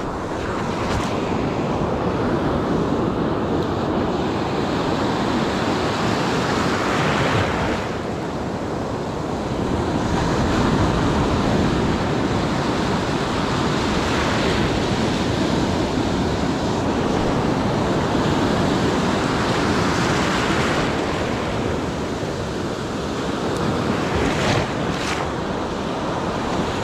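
Ocean surf breaking on a beach, its rush swelling and easing every few seconds, with wind buffeting the microphone. Two short clicks near the end.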